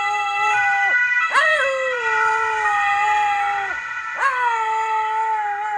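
Wolf howling: long drawn-out howls that each jump up sharply and then slide slowly down in pitch. One howl tails off about a second in, a second follows and lasts a couple of seconds, and a third starts near the end. A steady held tone sounds under the howls.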